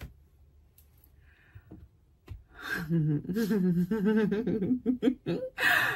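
After about two seconds of near silence, a woman gives a drawn-out, wavering chuckle without words. It ends in a short, sharp breath.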